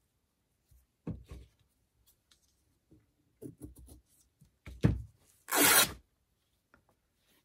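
Craft paper and cardstock being handled and sorted on a work table: a few soft knocks and rustles, then a loud rasp lasting about half a second, about five and a half seconds in.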